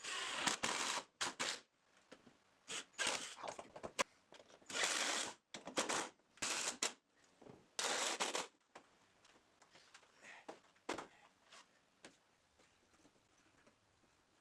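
Irregular workshop handling noises: short scraping bursts of half a second or so mixed with sharp clicks and knocks, bunched in the first nine seconds, then only a few faint ticks.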